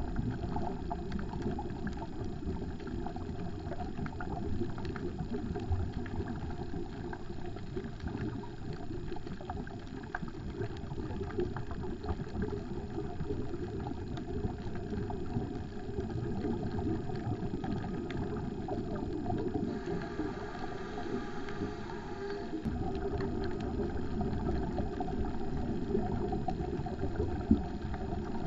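Muffled underwater noise picked up by a GoPro in its waterproof housing: a steady low rumble with a faint hiss, and a single sharp click near the end.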